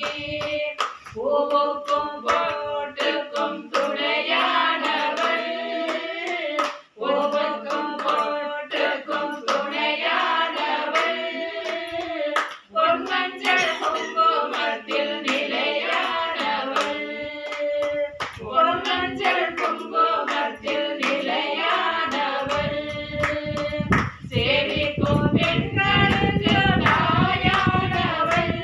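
Group of women singing a Hindu devotional bhajan together, with hand clapping keeping time through the song.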